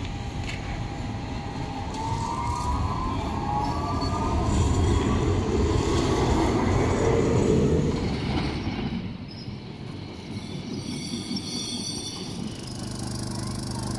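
Modern articulated tram, a Siemens Combino, rolling past on a curve: a rumble from the wheels and rails with faint rising wheel squeals, loudest about five to eight seconds in. About nine seconds in the sound drops abruptly to quieter street background with a steady low hum.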